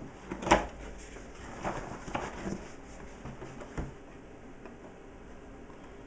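Packaging being handled: a multimeter's cardboard box and gear being picked up and set down on a desk, giving a series of knocks and clicks, the loudest about half a second in, then quieter from about four seconds.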